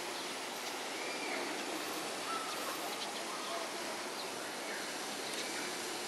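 Steady outdoor background noise with a few faint, short bird chirps scattered through it.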